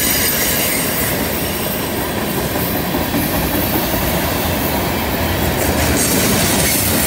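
Loaded freight tank cars and boxcars rolling past close by on a curve: a steady rumble and clatter of steel wheels on rail, with a faint high squeal from the wheels in the curve.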